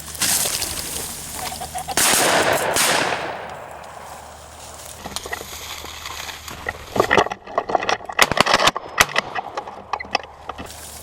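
Two shotgun shots about two seconds apart, each dying away slowly. Later comes a run of quick crackling and rustling.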